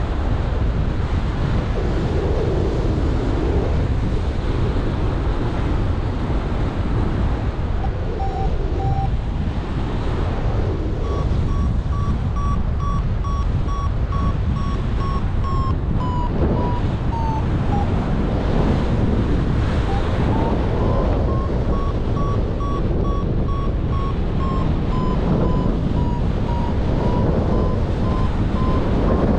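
Wind buffeting the microphone in flight under a paraglider, with a variometer beeping in quick short pulses from about a third of the way in, its pitch dipping briefly past the middle and rising again. Beeps like these are the vario's climb tone, signalling lift.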